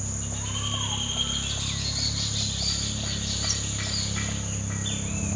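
Natural night-time ambience: a steady high-pitched insect trill runs throughout, with several bird whistles and chirps over it, including a short rising-and-falling whistle about a second in. A low steady hum lies underneath.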